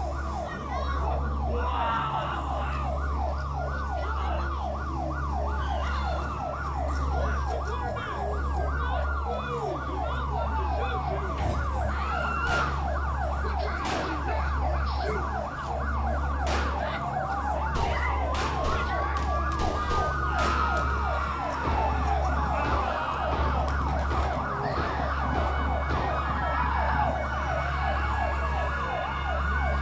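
Emergency sirens: a fast yelping siren repeating about four rising sweeps a second, with slower wailing sirens rising and falling over it, above a steady low drone. A few sharp clicks are scattered through the middle.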